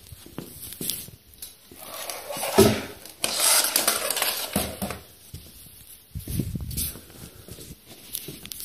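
Handling noise from the camera being moved about: irregular rustling, rubbing and knocking of hands and clothing against the microphone, loudest a few seconds in.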